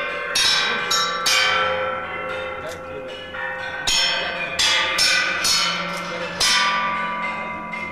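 Metal pieces of the sound sculpture 'Interleg Sounds' being struck in an improvisation: a string of about seven irregularly spaced strikes, each ringing like a bell and fading. Several strikes come in quick succession around the middle.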